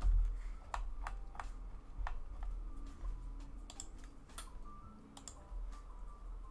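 Irregular sharp clicks and snips of small hard plastic model-kit parts being cut from the runner with hobby nippers and handled, over a steady low hum.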